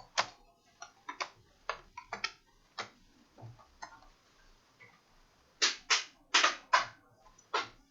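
Irregular sharp clicks and taps of a laptop being taken apart by hand, with a run of louder clicks in the last third.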